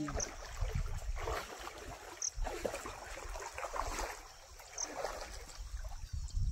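Water sloshing and splashing as a person wades through a shallow muddy stream, legs pushing through the water in uneven surges.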